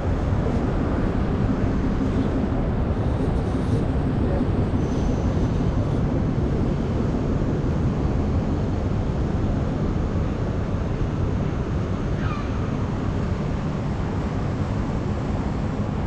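Steady low rumble of outdoor city background noise, with no clear single event standing out.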